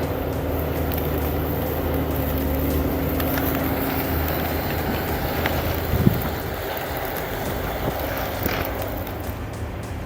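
Heavy logging machine's engine running steadily, with a single sharp knock about six seconds in.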